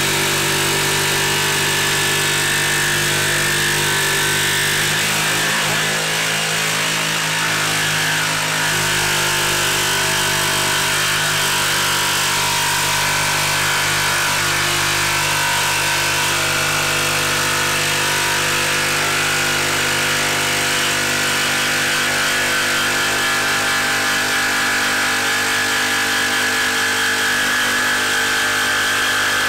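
Brushless Ryobi HP cordless jigsaw running continuously as it cuts through a 2x4 on orbital setting 1, the blade stroking steadily through the wood.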